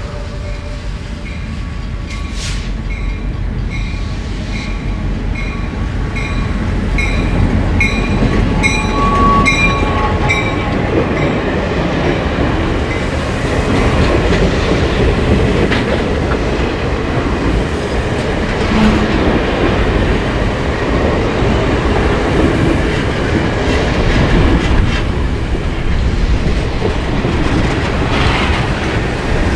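Diesel-led passenger train passing close by. A bell rings about twice a second for the first ten seconds or so as the locomotive goes by. Then the coaches roll past with a steady rumble and the wheels clicking over rail joints.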